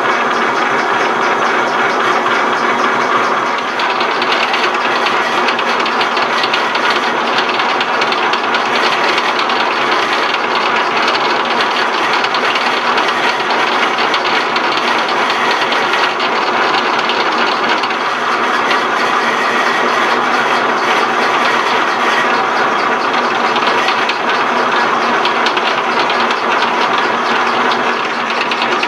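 1967 South Bend 13-inch lathe running at slow speed under power feed while threading a screw at 10 threads per inch, with a steady, dense mechanical clatter throughout.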